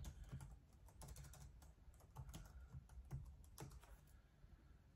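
Faint typing on a computer keyboard: a quick, irregular run of keystrokes that stops about four seconds in.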